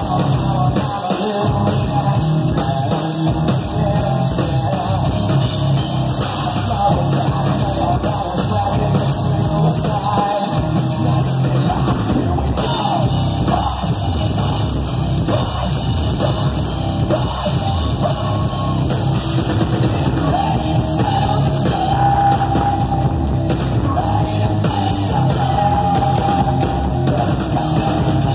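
Rock band playing live and loud, with electric guitar, bass guitar and drum kit, and a male voice singing over them.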